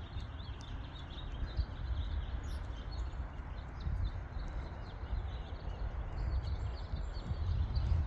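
Outdoor ambience: faint bird chirps over a low, uneven rumble.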